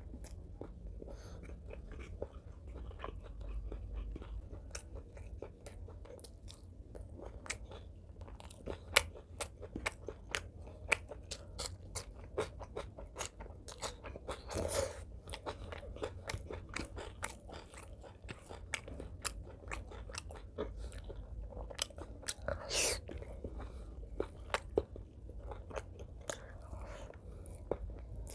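Close-miked chewing and wet mouth sounds of a person eating rice and green vegetables by hand: many quick sharp clicks and smacks, with two longer, louder noises, one about halfway through and one about three quarters in.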